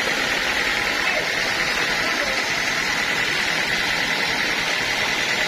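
Sawmill saw running steadily, a continuous even machine noise with a steady high tone in it.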